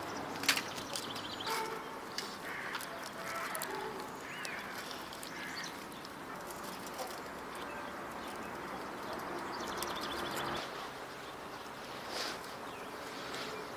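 Birds chirping and trilling in the background, with a few light clicks and taps, the sharpest about half a second in.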